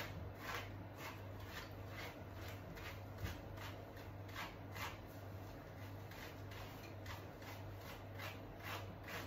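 Repeated short brushing strokes, roughly two a second and a little irregular, as a grooming brush is worked through a puppy's wet, knotted coat, over a steady low hum.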